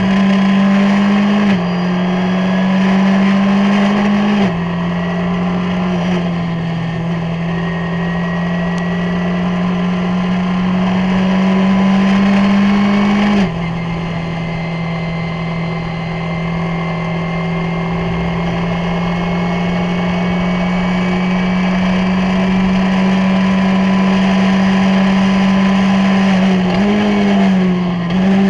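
Skip Barber race car's 2.0-litre SOHC four-cylinder engine at full throttle, heard from the cockpit. Its pitch climbs steadily through each gear, with upshifts about a second and a half in, at about four and a half seconds, and about halfway through. Near the end the pitch dips and quickly rises again as the car slows and downshifts for the next corner.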